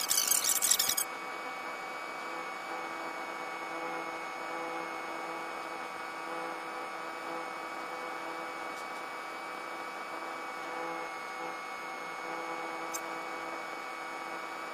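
A steady hum of several fixed tones. A loud hiss during the first second cuts off abruptly.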